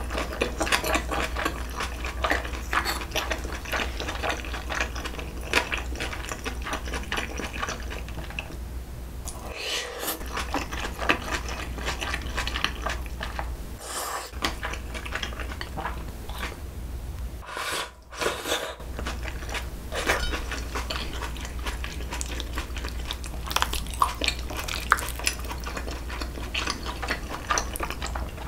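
Close-miked eating of jokbal (braised pork trotters) and noodles: chewing with a dense run of small wet clicks and crackles, with the clink of a spoon and chopsticks against bowls and a metal tray. There are brief pauses about 9, 14 and 18 seconds in.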